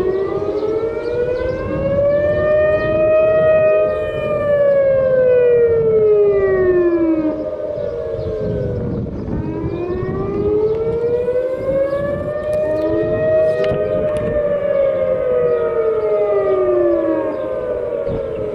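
Civil defence warning sirens wailing in an emergency alert system test. The pitch rises and falls slowly, about ten seconds per cycle, with overlapping wails slightly out of step over a steady held tone.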